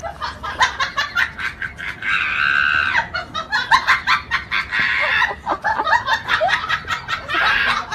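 A high-pitched, squeaky voice giggling and chattering in quick bursts, with a drawn-out squeal about two seconds in and more squeals later.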